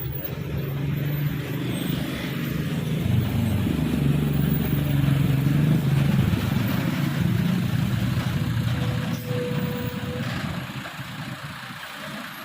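Bus engine running as it passes close by on the road, growing louder to a peak in the middle and fading toward the end.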